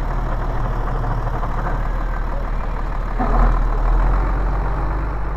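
Farm tractor's diesel engine idling steadily, heard from the cab and just outside it, with a brief louder swell about three seconds in.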